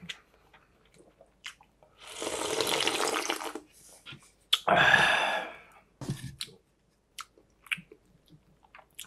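Slurping cold arrowroot mul-naengmyeon noodles and icy broth. There is a long slurp about two seconds in, then a shorter, louder slurp with the bowl at the mouth, followed by soft chewing and small clicks.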